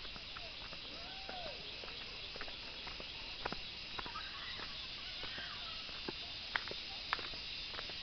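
Woodland ambience: a steady high-pitched insect chorus, with irregular footsteps on a stone path and a few faint whistled calls.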